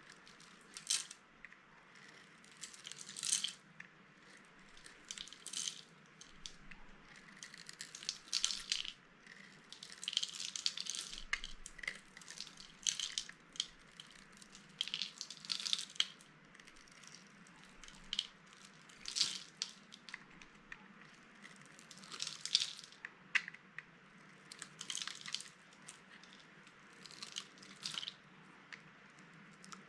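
Dry soap being crushed by hand, giving irregular crunchy crackles every second or so.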